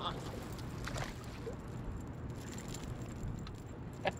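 Steady low wind and river-water noise on an open bass boat, with a faint click about a second in and a sharper click near the end.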